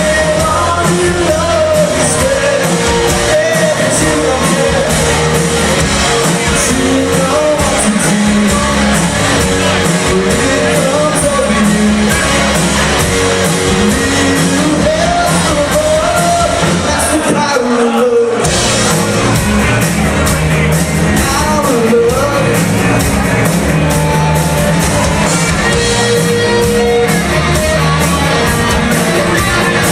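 Live rock covers band playing a song with a singer over guitars and drums, the sound of a large hall around it. The band stops briefly about two-thirds of the way through, then comes back in.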